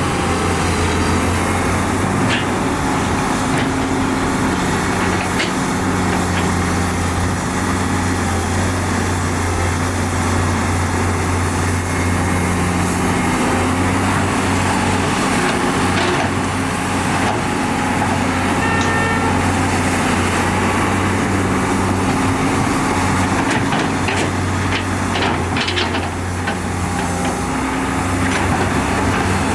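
Diesel engine of heavy earthmoving machinery running steadily, with a few short knocks about halfway through and again near the end.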